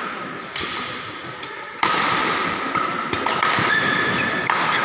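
Badminton rally: racket strings smacking the shuttlecock, a sharp hit about every second and a bit, with shoes squeaking on the court mat between shots, all echoing in a large hall.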